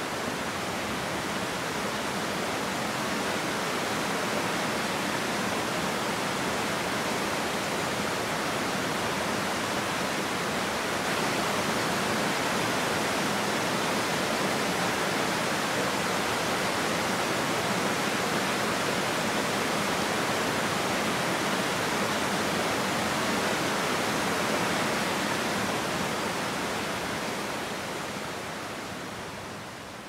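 Small waterfall cascading over rocks: a steady rush of white water that fades near the end.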